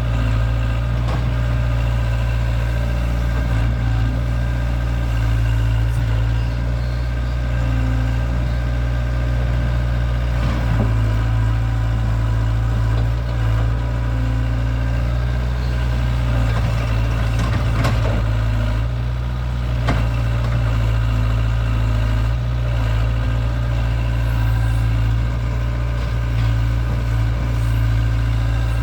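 Hydraulic excavator's diesel engine running steadily while it digs, with a few short knocks partway through.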